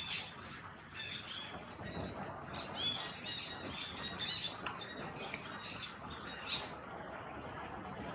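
Short high-pitched animal squeaks and chirps, several in quick succession, over a steady outdoor hiss. A single sharp click about five seconds in is the loudest sound.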